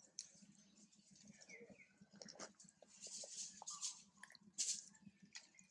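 Faint crackles, rustles and clicks of a long-tailed macaque handling and chewing small bits of food over dry leaf litter. The sharpest crackle comes a little past halfway. A few faint bird chirps sound near the start.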